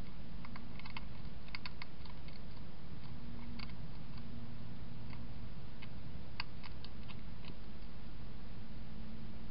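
European hedgehog eating from a bowl: irregular, sharp crunching clicks of food being chewed, coming in clusters, over a steady low hum.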